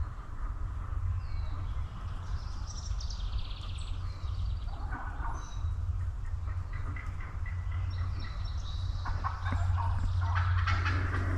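Wild turkeys calling, with rattling calls about five seconds in and again from about nine seconds on, over small songbird chirps and a steady low rumble.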